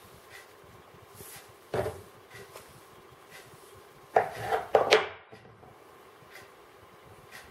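Table knife cutting through soft butter-cookie dough and knocking and scraping on a wooden board: one short knock near two seconds in, then a louder cluster of scrapes and knocks about four seconds in.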